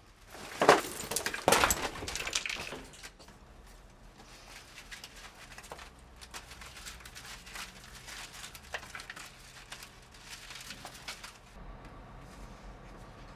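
Handling noise from a leather handbag being set down and rummaged through: a couple of knocks and rustles in the first few seconds, then faint scattered rustling and small clicks.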